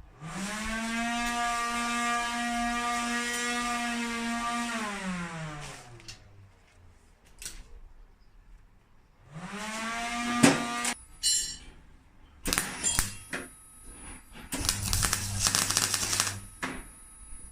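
An electric power tool's motor switched on, running with a steady whine for about five seconds, then spinning down. It is started again briefly about nine seconds in. After that come sharp clicks and a dense, rapid crackle of ticks lasting a couple of seconds.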